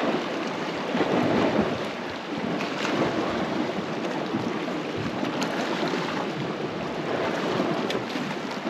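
Sea water washing and splashing against rocks at the foot of a cliff, a rushing noise that swells and ebbs.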